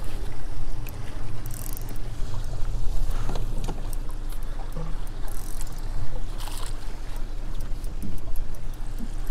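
Steady low rumble of wind and water around a small boat, with a faint steady hum, scattered small clicks and a few short hissing splashes in the water.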